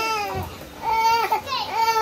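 Seven-month-old baby crying: three short, high wails in a row.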